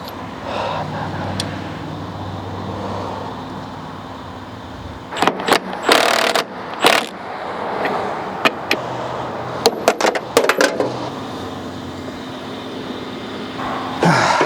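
Sharp metallic clinks and taps of hand tools working on a lawn tractor's steering wheel to get it off. They come in scattered clusters about five seconds in and again around nine to ten seconds, with a short noisy scrape in between.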